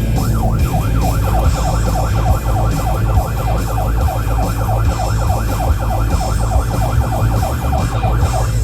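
Electronic siren of a Florida Highway Patrol car, starting with a few slow up-and-down wails and switching to a fast yelp of about five sweeps a second, then cutting off suddenly, over a steady low rumble.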